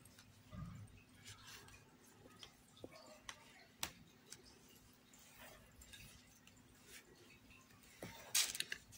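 Faint rustling and soft scattered clicks of a crochet hook pulling thick T-shirt yarn through the stitches.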